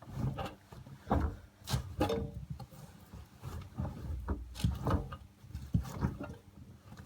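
Irregular knocks, clunks and rubbing sounds from an AEG Öko-Lavamat 74780 front-loading washing machine, coming unevenly a few times a second.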